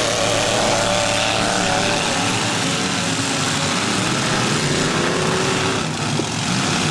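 Demolition derby car engines running and revving without a break, several pitches overlapping and rising and falling.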